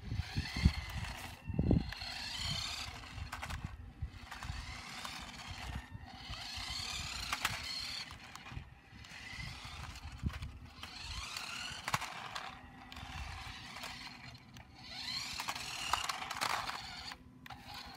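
Toy radio-control car's small electric motor whirring in repeated spurts of a second or two, its pitch rising and falling as it speeds up and slows, with short pauses between runs. A few low thumps come near the start.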